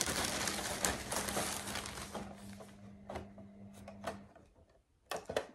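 Rustling and small clicks of objects and packaging being handled, fading out over the first few seconds, with a couple of short clicks near the end.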